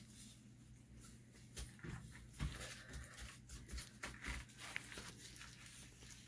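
Faint scattered taps and scuffs as a stretched canvas is handled and tilted by hand, over a steady low hum.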